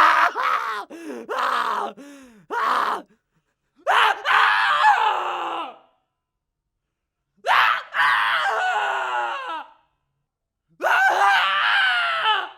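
A terrified person screaming and groaning in pain: a run of short broken cries at first, then three long wavering screams, each separated by a pause of about a second.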